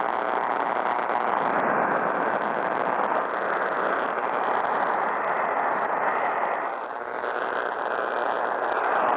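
Steady radio static: an even, band-limited hiss from a radio receiver carrying no programme, dipping briefly about seven seconds in.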